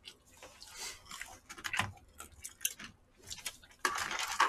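Eating sounds: chewing, with chopsticks clicking and scraping against plastic takeout containers and a short burst of noisy rustling or slurping near the end.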